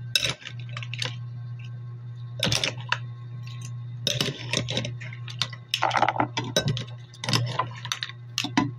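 Metal spoon and fork clinking and scraping against a ceramic bowl and plate while cooked mussels are lifted out, their shells clattering against each other and the cutlery in short clusters every second or so. A steady low hum runs underneath.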